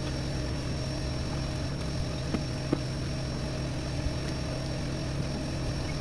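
A steady low hum, with a few faint light clicks.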